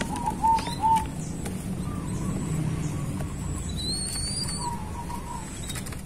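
Zebra dove (perkutut) cooing: a quick run of about four short, clipped notes in the first second, then softer coos further in. A thin high whistle comes briefly about four seconds in.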